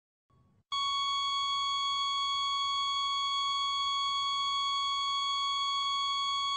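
A single continuous electronic beep tone, steady and unwavering in pitch, starting under a second in and held for over six seconds before it cuts off abruptly.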